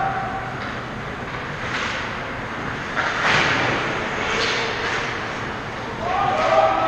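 Ice hockey skate blades scraping and hissing on the ice in a few short bursts, the loudest about three seconds in, over the rink's steady noise. Near the end a held, pitched sound rises above it.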